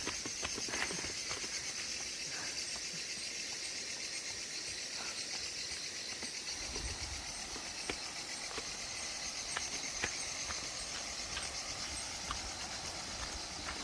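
Steady high-pitched insect chirring in the forest, with scattered light clicks and taps.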